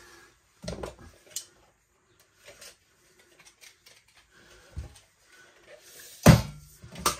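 Handling of a steel tape measure and a pine board: a few light knocks and rustles, then a sharp, loud click about six seconds in and a second one shortly after as the tape blade is pulled out and set against the board.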